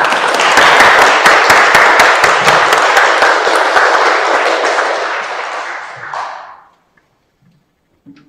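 An audience applauding, starting suddenly and fading away about six and a half seconds in.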